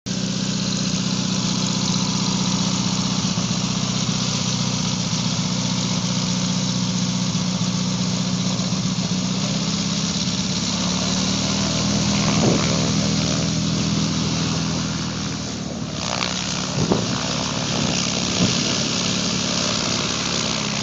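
Bush King air-cooled VW-based aircraft engine conversion with belt reduction drive, running steadily and driving the propeller of a light aircraft rolling along a runway. The engine note rises a little about halfway through and eases back, with an abrupt change in the sound a few seconds before the end.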